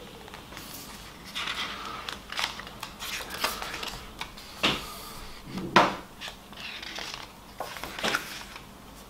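Pages of a hardback booklet being turned and smoothed down by hand: soft paper rustles and brushes with a few sharper flicks, the loudest about six seconds in.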